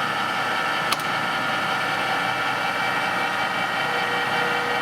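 Sharp 16" x 40" engine lathe running with its longitudinal power feed engaged: a steady whine of several gear tones over mechanical noise. There is one sharp click about a second in.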